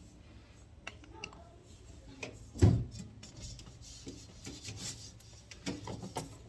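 Knocks and clatter of things being handled while a fridge is cleaned out, with one loud thump a little under three seconds in.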